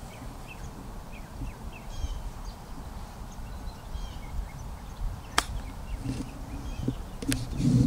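A golf club strikes a ball off the grass with one sharp click about five seconds in, with a fainter click near the end. Small birds chirp throughout.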